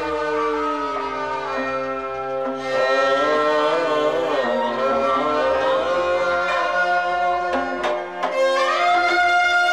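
Kashmiri folk ensemble playing an instrumental passage: a bowed sarangi carries a sliding melody over a harmonium's sustained notes, with a goblet drum keeping the beat and plucked lutes.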